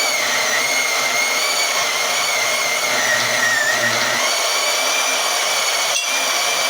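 Harbor Freight portable band saw running and cutting through thick steel, its high motor whine wavering and dipping a little in pitch as the blade loads up. The saw is straining in the cut. A single click comes near the end.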